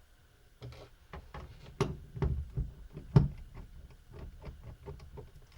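Screwdriver backing a long screw out of a plastic laptop base: a run of irregular small clicks and knocks, the loudest about three seconds in.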